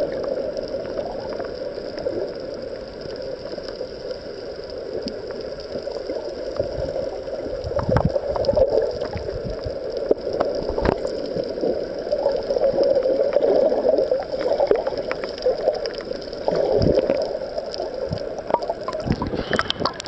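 Ocean surf heard from underwater: a muffled, churning rush with gurgling and a few dull knocks, opening up just before the end as the camera breaks the surface.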